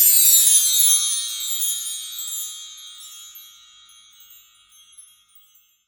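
Cartoon chime sound effect: a quick run of high, bright metal chimes sweeping down in pitch, then ringing on and fading out over several seconds.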